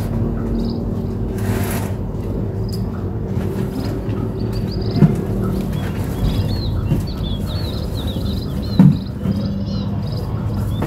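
Small birds chirping in quick repeated high notes over a steady low hum, with two sharp knocks, the second the louder.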